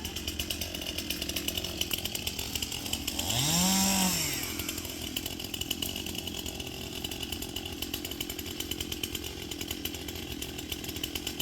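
Two-stroke chainsaw running at idle, revved up once about three seconds in and let back down, the rise and fall of engine pitch lasting about a second and being the loudest moment.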